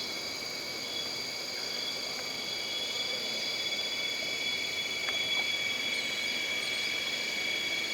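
Jungle ambience: a steady drone of insects trilling at several high pitches, with a few faint high bird chirps over it.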